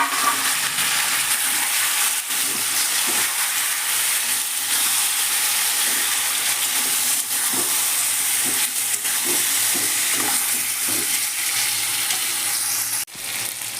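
Marinated chicken sizzling in hot oil with fried onions in a kadai, stirred with a spatula, with short scrapes and knocks against the pan. The sizzle briefly drops out near the end.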